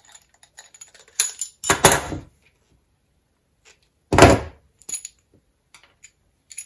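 Hand tools being handled on a wooden worktop while coax is trimmed with side cutters: a few small clicks and snips, and two heavier knocks, about two seconds in and just after four seconds.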